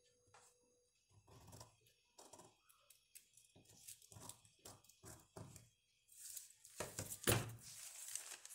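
Scissors snipping through folded newspaper in a series of short irregular cuts, then louder crackling rustle of the newspaper being handled near the end.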